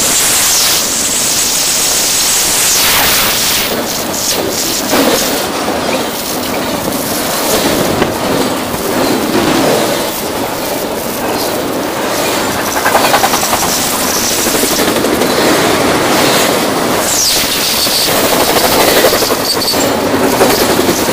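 Double-stack container freight train rolling past close by: a continuous rumble and clatter of the wagons, with high wheel squeals near the start and again near the end, over a dense rattle from riding a rough gravel road.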